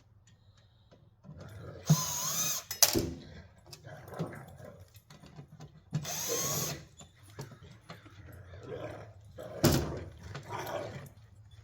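Dogs barking loudly in short outbursts, about two seconds in and again about six seconds in, with a sharp knock near the end.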